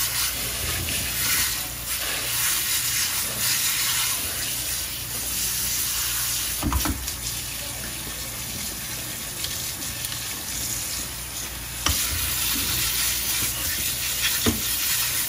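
Kitchen tap water running and splashing over a cleaned blue crab and into a metal strainer in a stainless-steel sink as the crab is rinsed, with a few brief knocks along the way.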